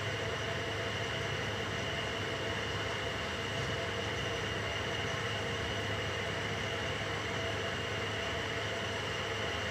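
A steady mechanical hum with an even hiss and a few fixed tones, unchanging throughout.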